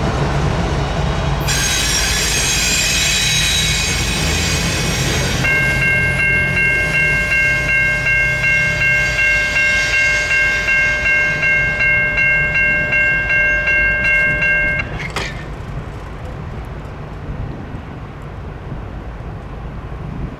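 Freight train with its locomotives running, a low rumble, joined by a high screech of wheels about a second and a half in. A bell then rings steadily at about two strokes a second for some nine seconds and stops, leaving a quieter rumble of the passing train.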